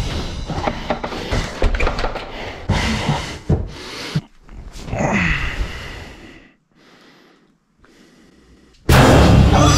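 Quick footsteps and knocks on a wooden staircase, mixed with hard panting breaths. About two seconds of near quiet follow. Near the end a sudden loud burst of music cuts in.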